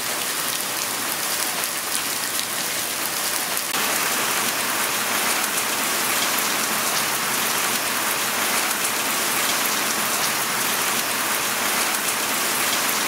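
Heavy rain falling steadily on wet stone paving and grass, a dense even hiss of drops. It grows a little louder and fuller about four seconds in and cuts off suddenly at the end.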